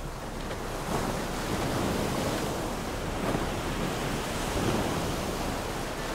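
Seawater rushing and splashing in a sailboat's bow wave close to the microphone, with wind on the mic. The rush swells about a second in and stays full.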